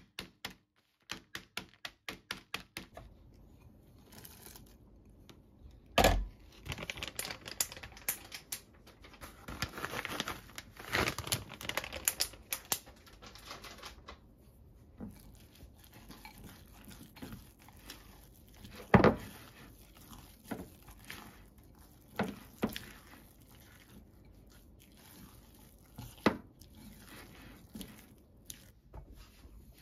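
A wooden rolling pin tapping a plastic bag of mixed nuts to crush them, a quick even run of light taps at about five a second that stops about three seconds in. Then the plastic bag crinkles and rustles, followed by a spatula stirring the nuts into batter in a glass bowl, with a few single knocks.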